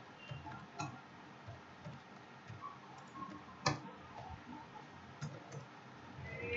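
Computer keyboard keys being typed: a scattered run of light keystroke clicks, with one sharper, louder click a little over halfway through.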